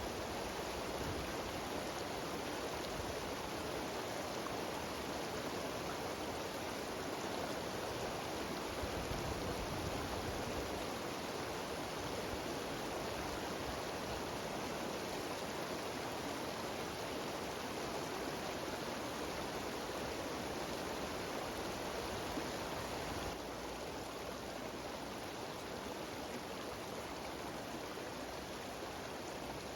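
Mountain stream cascading down a small waterfall, a steady rushing of water that drops slightly in level about three-quarters of the way through.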